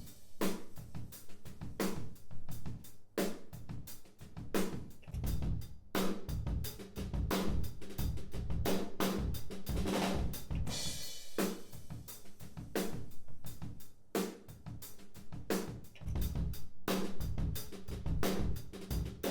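Recorded acoustic drum kit heard through room microphones, A/B-switched between a mono room mic with a Blumlein pair and a mid-side pair. Kick, snare and hi-hat play a steady groove, with a cymbal crash about halfway through.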